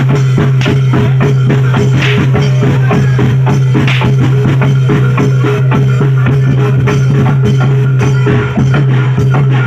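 Live reog and jaran dor gamelan music: loud, fast, even percussion, about five strokes a second, over a steady low held tone.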